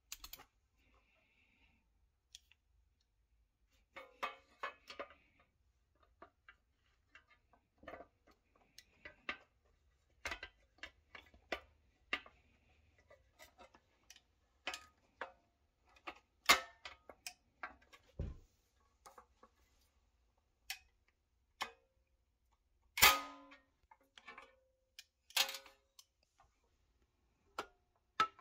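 Irregular metallic clicks and clacks as a hand pop-rivet tool is worked on the painted pressed-steel frame of a toy truck, with a few much louder sharp snaps in the second half.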